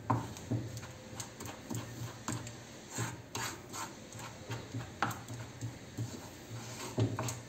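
Wooden spoon scraping and knocking in a nonstick frying pan as a thick paste of white wood glue and cornstarch is stirred without pause, in irregular short scrapes and light clicks.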